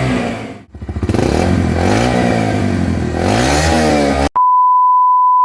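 2023 Yamaha YBR 125G's single-cylinder four-stroke engine revving through its stock silencer, pitch rising and falling, with a brief drop-out just under a second in. About four seconds in it cuts off suddenly and a steady high beep takes over.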